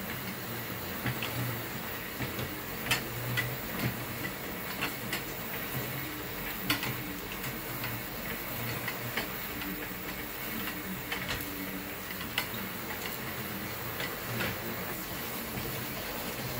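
Home elliptical trainer in use: irregular clicks and knocks from the moving handlebars and linkage over a low pulsing hum and a steady hiss.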